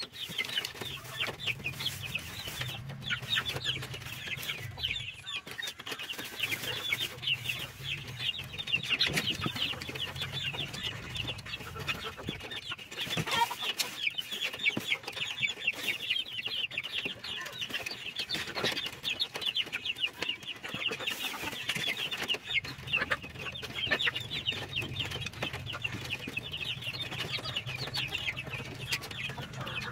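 A flock of free-range chickens clucking and calling continuously, many short high calls overlapping, with some rustling of plastic bags as feed is handled.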